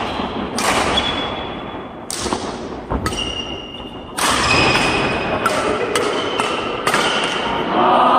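Badminton rally: a shuttlecock struck back and forth with rackets in a run of sharp hits, about one a second, echoing in a large hall. Shoes squeak briefly on the wooden court floor. Onlookers' voices rise near the end.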